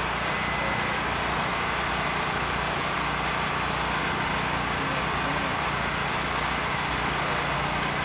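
Steady mechanical drone with a low hum, like an engine idling.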